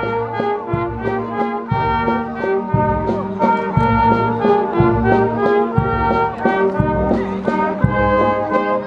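Brass band music: trumpets and trombones playing a melody over a steady bass drum beat, about one beat a second.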